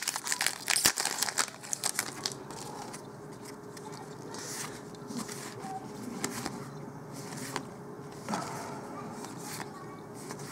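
Foil trading-card booster pack wrapper crinkling and tearing open for about the first two seconds, then a softer rustle of cards being slid and flipped by hand.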